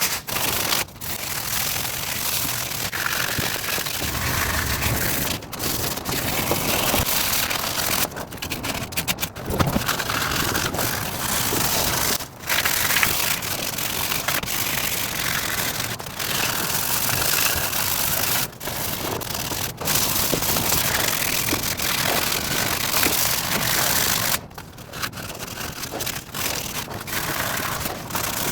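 100-grit sandpaper rubbing over a dog-chewed wooden chair leg, knocking down the raised spots where the wood swelled. The scratching runs on with brief pauses every few seconds.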